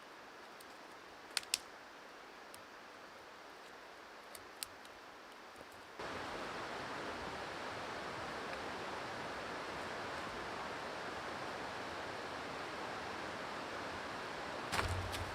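A steady outdoor hiss with a few faint sharp clicks. About six seconds in it jumps suddenly to a louder, even hiss, and a brief thump comes near the end.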